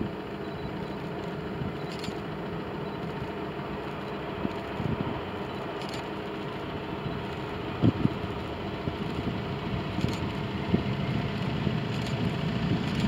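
Jet engine noise from a Boeing 777-200 landing: a steady rumble with a held whine, growing louder near the end as the airliner rolls out. A few short low thumps come through, in the way wind hits a microphone.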